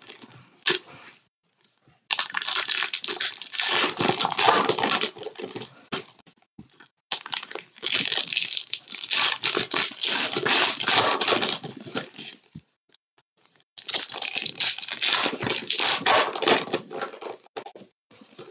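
Crinkly foil card-pack wrappers and box wrapping being torn open and crumpled by hand, in three long spells of crackling with short pauses between.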